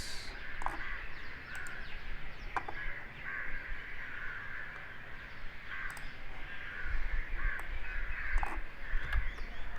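Birds calling over and over in the background, with a few short clicks.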